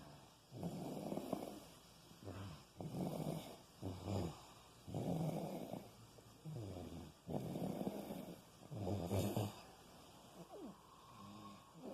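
Baby snoring, a snore on each breath, about one every second and a half.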